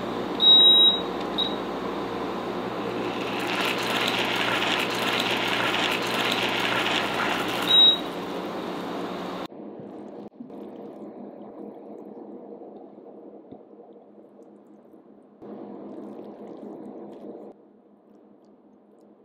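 Induction hob beeping as its buttons are pressed: a longer and a short beep about a second in, and another several seconds later, over its steady hum and a hiss of sauce heating in a small saucepan. Then it turns quieter, with soft handling sounds of tongs lifting spaghetti out of a frying pan.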